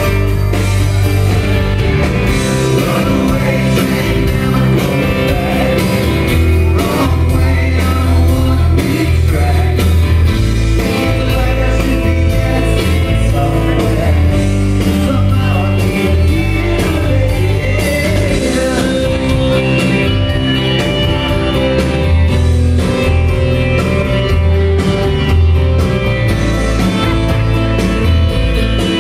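Rock band playing live and loud: guitars, bass guitar and drums with a sung vocal, as heard from the crowd in a concert hall.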